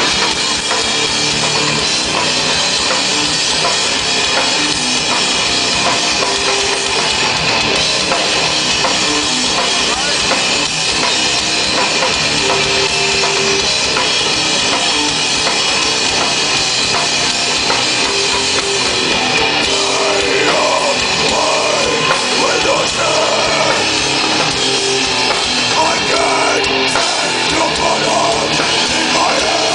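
A rock band playing live, loud and dense, with a drum kit driving it.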